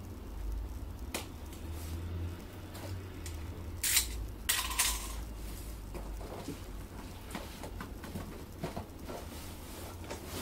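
Large cardboard box being handled and shifted on a table: light scrapes, taps and rustles, with two louder scraping rustles about four to five seconds in, over a low steady hum.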